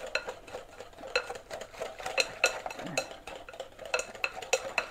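Hand whisk beating cake batter in a glass bowl, the whisk clinking against the glass in an uneven rhythm of about two to three strokes a second.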